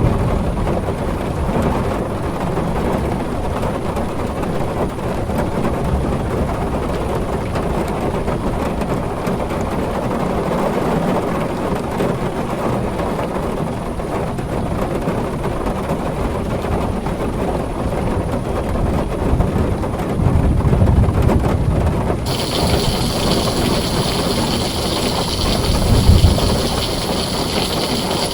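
Heavy rain drumming steadily on a tin roof, with low rolls of thunder swelling about 20 seconds in and again near the end. About 22 seconds in, a brighter, hissier layer of rain comes in suddenly.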